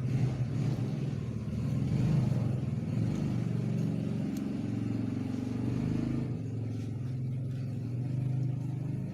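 Honda Grand motorcycle engine running at a steady idle, a low, even hum.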